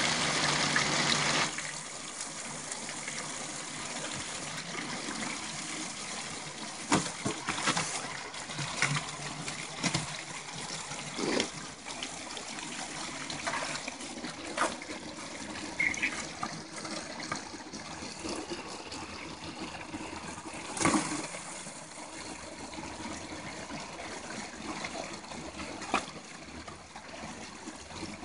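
Water running through a pump-fed gold cube hopper and trickling over the gold cubes into their plastic tray, with a creek running alongside. Louder for the first second or so, with occasional sharp clicks.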